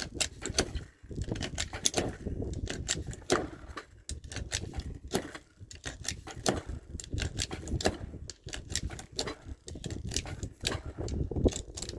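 Irregular small clicks and metallic rattles, many close together, over a low rumble: firearms, magazines and ammunition being handled.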